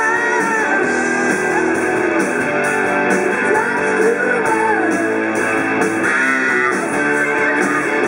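Live rock band playing through a PA: electric guitars, bass guitar and drum kit.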